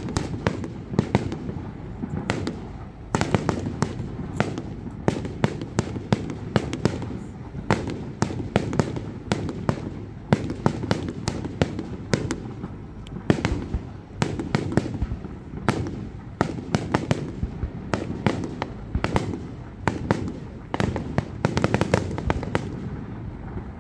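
Aerial fireworks display: a rapid, unbroken barrage of shell bursts and crackling, with the bangs coming thickest near the end.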